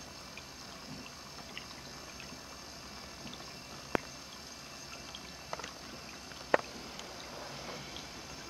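Ceramic cat drinking fountain running: a thin pump-fed stream of water trickling steadily from its spout into the water in the bowl. Two sharp clicks stand out, about four seconds in and again about two and a half seconds later.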